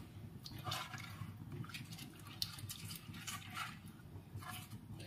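A hand mixing thick, watery curry masala in an earthen pot: faint, irregular wet squelches and small splashes.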